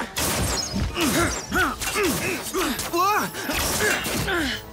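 Animated fight soundtrack: a run of swooping, rising-and-falling tones, about two or three a second, mixed with whooshes and a few sharp impact hits, near the start, about one and a half seconds in and about three seconds in.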